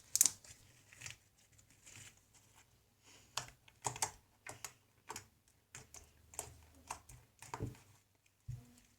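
Yellow glue-and-borax slime being squeezed and stretched by hand, giving irregular wet clicks and pops, roughly one or two a second.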